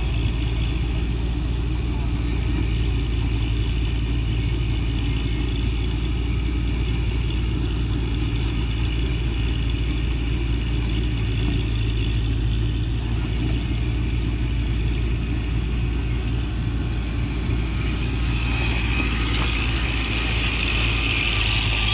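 A motor vehicle engine running steadily with a low, even drone and no change in revs; a hiss swells over it during the last few seconds.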